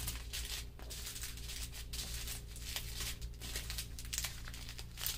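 Small plastic bags of diamond painting drills crinkling and rustling in short, irregular bursts as they are handled and set down on the canvas's plastic cover.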